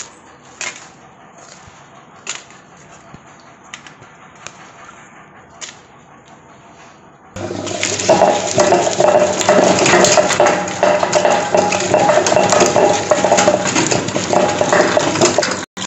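A table-top wet grinder grinding soaked dried red chillies: its stone roller turns and grinds in the drum with a motor hum. A few faint clicks come first, then the grinding comes in suddenly and loud about seven seconds in and cuts off just before the end.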